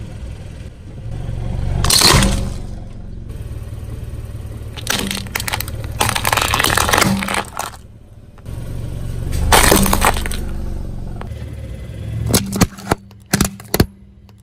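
A car tyre rolling over and crushing plastic toys one after another: a loud crack and crunch about two seconds in, longer crackling crunches around five to seven and ten seconds in, and a quick run of sharp snaps near the end. A low engine hum runs underneath.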